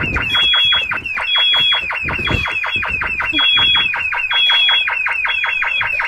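School fire alarm sounding: a continuous stream of rapid, falling electronic chirps, with a high steady beep pulsing on and off about once a second.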